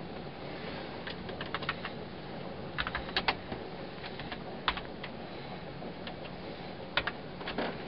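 Scattered light clicks and taps, some in quick little clusters, over a steady low hiss.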